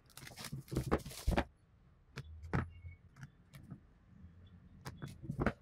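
Plastic shrink-wrap crinkling and crackling as it is slit and pulled off cardboard phone boxes: a busy run of crackles for about the first second and a half, then scattered clicks and rustles.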